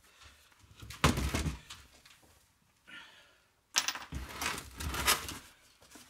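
Empty plastic crate being handled on a workbench: a thunk about a second in, then a longer rattling clatter of the crate being knocked and set down about four seconds in.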